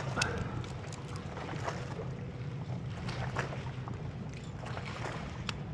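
Steady wind and water noise on a kayak, with scattered small clicks and taps as a lure is worked free of a speckled trout held in a landing net.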